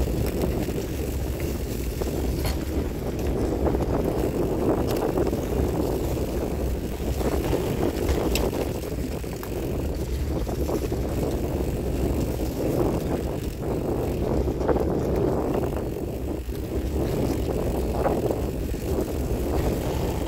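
Wind noise on the microphone and tyre rumble from a bicycle riding over a dirt track, a steady low rushing broken by occasional sharp clicks and rattles from the bike over bumps.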